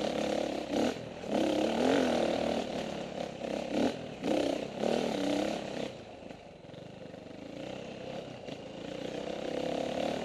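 KTM 450 XC-W's four-stroke single-cylinder engine heard on board, revving up and down with the throttle as the dirt bike rides a trail. About halfway through it eases to a quieter, lower run, then builds again near the end.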